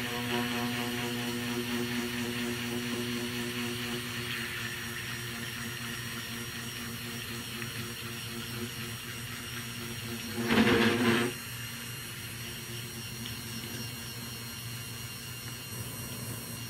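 Electric stick blender running steadily in a plastic bucket of soap oils, a constant motor hum, with one louder stretch of about a second roughly ten seconds in.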